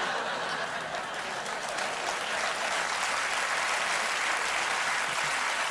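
Studio audience applauding steadily: an applause break in response to a stand-up joke.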